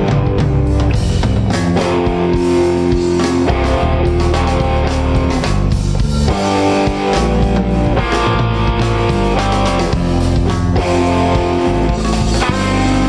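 A jazz-fusion quartet playing live, with electric guitar to the fore over electric bass and drums.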